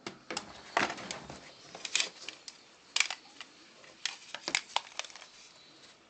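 Plastic housing of a Philips HP8116 hair dryer being handled and turned over in the hands: a series of sharp, irregular clicks and knocks that thin out after about five seconds.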